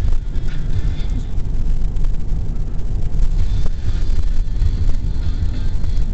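Steady low engine and road rumble of a car driving along a country road, heard from inside the cabin.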